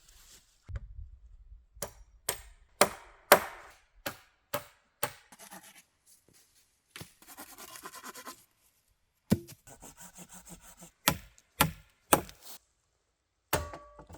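Wood being worked, heard as about a dozen sharp knocks at uneven intervals, with a stretch of rubbing or scraping in the middle.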